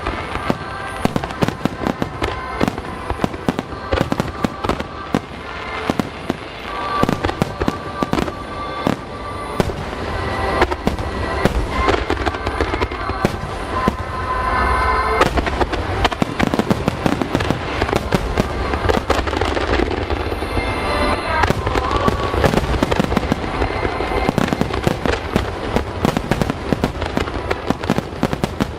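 Aerial fireworks bursting in quick, irregular succession over a continuous low rumble, thickening into a heavier barrage about halfway through, with music playing through outdoor loudspeakers underneath.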